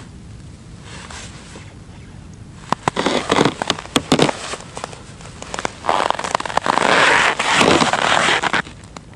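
Rustling, crackling handling noise in two spells. The first, about three seconds in, is short with sharp clicks. The second, about six seconds in, is louder and longer and stops shortly before the end.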